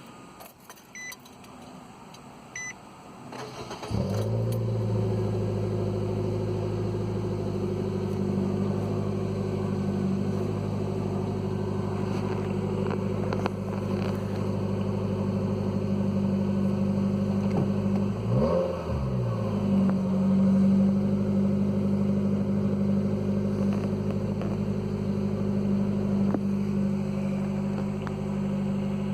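A few short electronic beeps, then a 2015 Nissan Versa's 1.6-litre four-cylinder engine starts about four seconds in and runs at a steady idle. The idle is loud because of an exhaust leak where the pipe has rusted through just after the muffler flange. A little past halfway the engine speed dips sharply and recovers.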